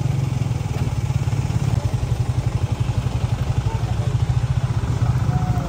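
Truck engine running at idle nearby: a steady low rumble with fast, even pulsing.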